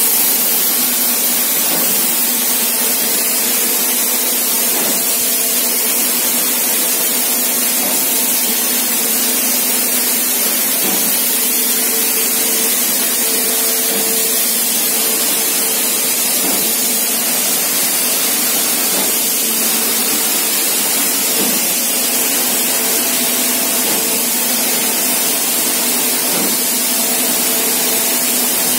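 Wet shotcrete machine spraying concrete: a loud, steady hiss of compressed air and concrete leaving the nozzle, over a steady machine hum, with a few faint knocks.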